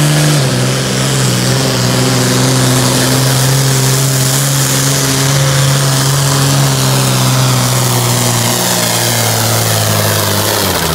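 International Harvester modified farm tractor's diesel engine running flat out as it pulls a weight sled: a loud, steady drone. The revs ease down slowly as the load builds, then drop away near the end as the pull finishes.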